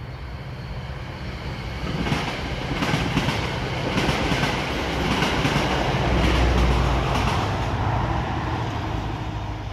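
NJ Transit commuter train passing at speed, its wheels clicking irregularly over the rails. It grows louder about two seconds in, with a low rumble strongest about two-thirds of the way through, then fades near the end.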